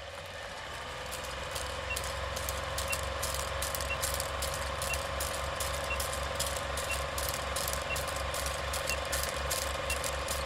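Film projector sound effect: a fast, even mechanical clatter over a steady hum, swelling over the first couple of seconds, with a short countdown beep once a second from about two seconds in.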